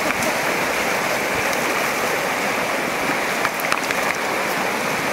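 Fast mountain river rushing over rocks and gravel: a steady, dense rush of water.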